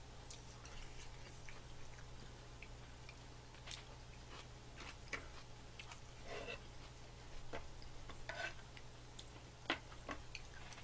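Quiet eating sounds: scattered small clicks of spoons and chopsticks on plastic cup-rice bowls, with soft chewing and mouth sounds, over a low steady hum.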